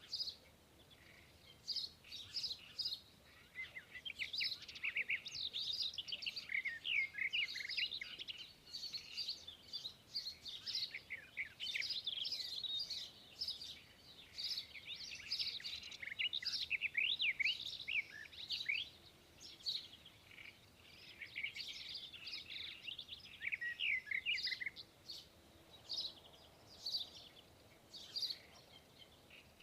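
Small birds chirping and twittering, many quick overlapping chirps, busiest through the middle and thinning to scattered single chirps near the end.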